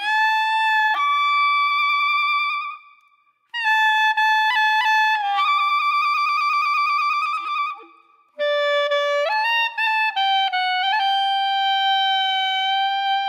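Music: a single wind instrument, clarinet-like, playing a slow melody in three long phrases with vibrato and a few steps in pitch. There is no train or ambient noise underneath.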